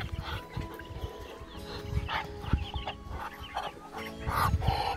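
Soft background music with steady held tones, over short, scattered farmyard animal noises from a dog and poultry, and some low rumble from handling the phone.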